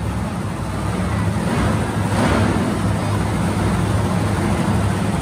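Monster truck engines running, a deep steady rumble that grows louder about two seconds in and stays loud.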